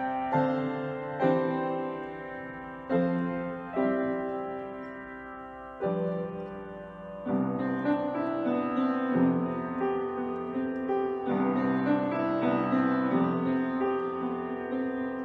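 Upright piano playing a slow hymn tune. It starts with separate chords struck about once a second and left to ring away, and the playing grows fuller and more continuous about halfway through.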